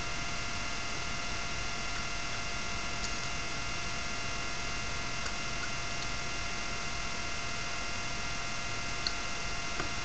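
Steady electrical hum and hiss with several faint high whining tones, the recording's own noise floor. A faint click about nine seconds in.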